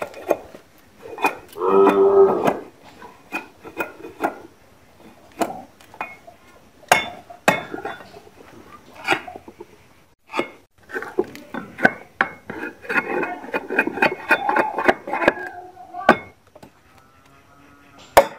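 Curved hand blade knocking and chopping into a coconut palm frond stalk laid over a log: irregular sharp strikes of metal on wood, with a few hammer-like blows among them.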